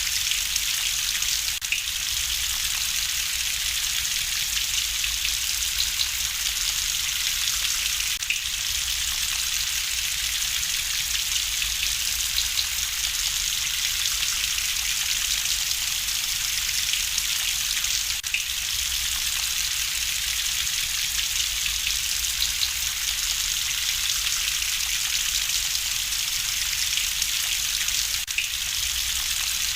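Steady rain with a crackling wood fire: an even hiss of rainfall with small scattered crackles and pops.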